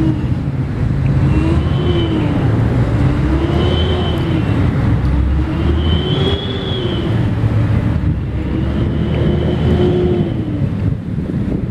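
A steady low rumble with a droning hum that slowly wavers up and down in pitch, like an engine running, under wind noise on the microphone.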